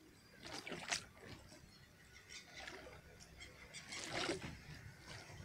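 Faint lapping of small harbour waves against the pier, with a few soft splashes and gurgles over a low water hush.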